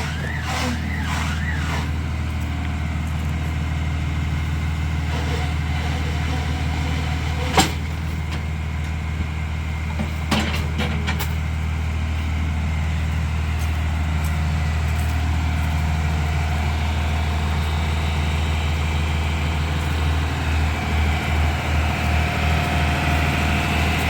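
A heavy engine running steadily at low speed, with a sharp click about seven and a half seconds in and a few lighter clicks around ten seconds. Near the end the engine note starts to pulse unevenly.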